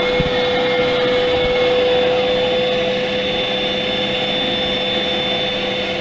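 Eureka AirSpeed All Floors vacuum running steadily with a high whine, its stair and upholstery tool sucking Cheerio crumbs off a microfiber ottoman.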